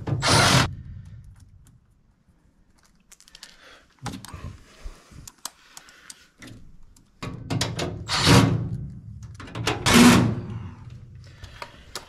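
Tools and metal parts being handled inside a furnace cabinet: scattered clicks, knocks and rubbing. There are three short, louder noisy bursts, one at the start, one about eight seconds in and one about ten seconds in.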